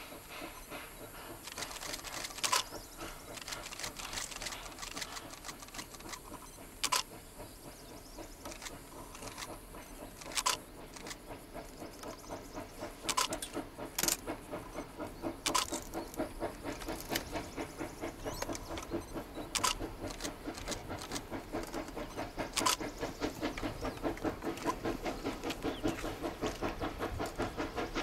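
China Railways JS-class 2-8-2 steam locomotive working a freight train, its fast, even exhaust beats growing louder as it approaches, with sharp clicks every few seconds.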